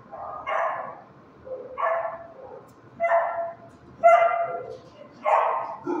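A dog barking, five barks about a second apart.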